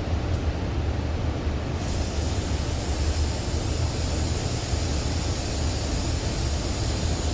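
Steady low rumble; about two seconds in, a steady high air hiss starts and holds: a paint spray gun spraying textured primer surfacer at low air pressure to build a crimp texture.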